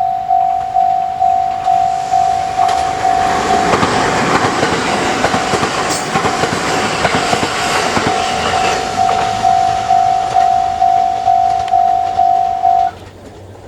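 Japanese railway level-crossing alarm bell dinging steadily at about two strokes a second while a train runs over the crossing, its wheels rumbling and clacking, loudest from about three to nine seconds in. The bell stops abruptly near the end, a sign that the train has cleared the crossing.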